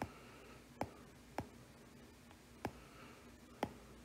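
Five sharp, short taps on a tablet touchscreen, coming at uneven intervals while spline control points are being placed and dragged, over a faint steady room hiss.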